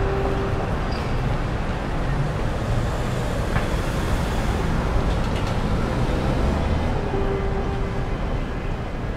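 Steady, dense rumble and hiss like road traffic. A short steady tone sounds at the start and again about seven seconds in.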